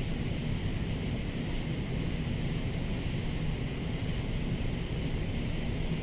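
Cicadas singing in a continuous, unchanging chorus over a steady low rumble.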